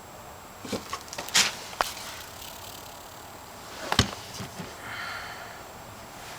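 Scattered knocks and clatters of old objects being handled and shifted in a wooden trunk, with a sharper knock about four seconds in.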